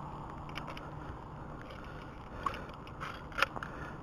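A caught bass flopping as it is handled for weighing: a few short knocks and splashes about two and a half to three and a half seconds in, over a steady low hum.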